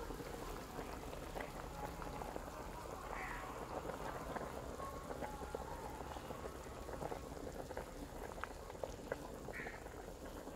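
Water and vegetables boiling hard in a large open aluminium pot: a steady bubbling with many small pops.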